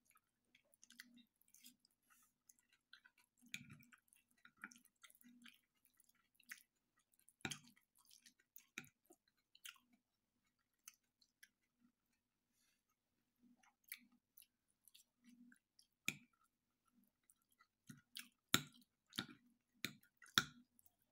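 Faint, close-up chewing of a person eating, with irregular small mouth sounds and scattered sharp clicks, a few louder ones near the middle and toward the end.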